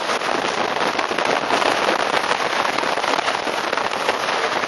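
Wind rushing and buffeting over the microphone of a camera carried on a moving roller coaster: a dense, steady, crackling rush.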